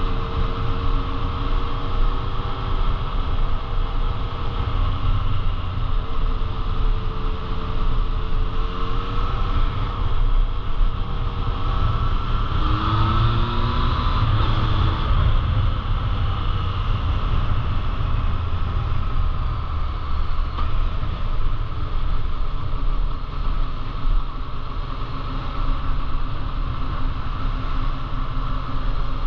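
A motor vehicle running steadily, with a heavy low rumble throughout; a few short tones slide in pitch around the middle.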